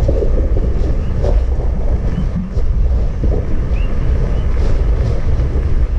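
Kīlauea lava fissure erupting at close range: a loud, steady rumbling roar, with wind buffeting the microphone.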